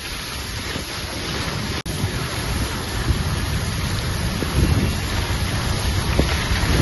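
Steady rushing noise of a car driving over a hail-covered wet road, with a low rumble of wind on the microphone. The sound cuts out for an instant just under two seconds in.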